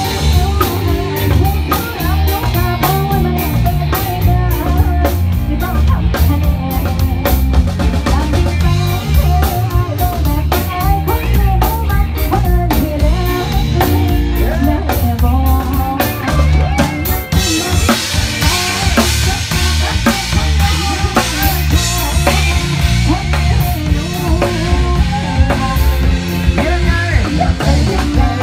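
Live rock band playing loudly: drum kit, electric guitar and bass guitar. From a little past halfway the cymbals ring more heavily.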